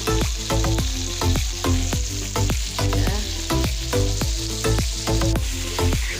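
Food sizzling as it fries in hot oil in a pan, over background music with a steady beat of about two beats a second.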